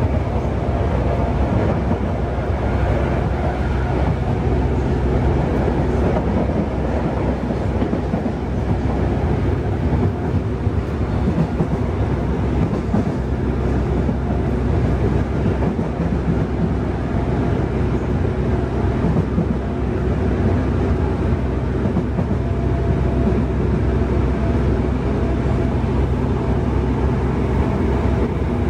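Steady running noise inside a Yokohama Municipal Subway 3000A-series car moving through a tunnel: wheels on rail and the car body at an even speed.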